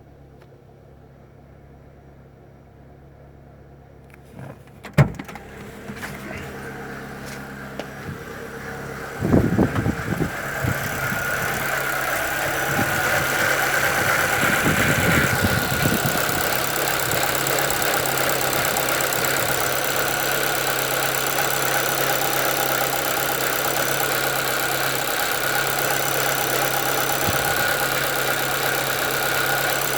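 Chevrolet Celta 1.0 VHCE engine running at idle, with a steady noise from the front of the engine where the belts and water pump sit; the owner suspects the water pump, which has a little play, since a new timing belt did not cure it. A sharp click comes about 5 s in and a burst of thumps around 9 to 10 s in, after which the running noise is much louder and stays steady with a held whine.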